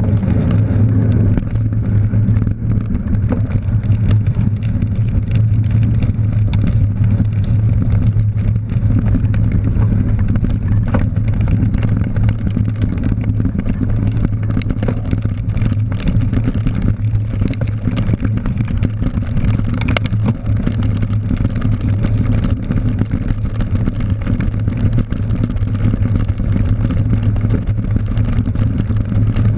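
Steady wind rush and rumble on a bike-mounted GoPro as a cyclocross bike rides fast over dirt and grass, with many small clicks and rattles from the tyres and bike over the rough ground.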